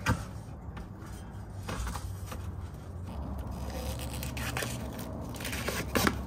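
Blue protective plastic film being peeled off a new exhaust muffler, crackling and tearing, busiest near the end. A single knock right at the start.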